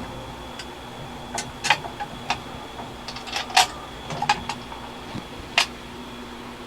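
Scattered light clicks and knocks from hands taking a steering wheel off its column and unplugging its wiring, the loudest about halfway through, over a steady fan hum.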